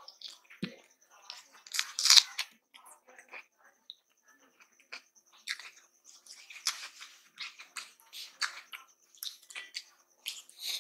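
Close-up eating sounds of rice and dal eaten by hand: wet chewing and lip smacking in irregular bursts, with fingers squishing rice on the plate; the loudest smack comes about two seconds in.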